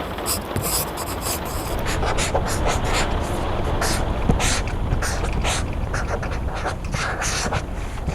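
Pencil writing on paper in quick, irregular scratchy strokes, over a steady bed of rain with a low rumble.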